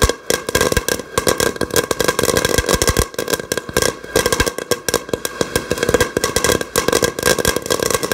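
Fireworks going off in a continuous, rapid crackle of sharp pops, many a second, like a long string of firecrackers.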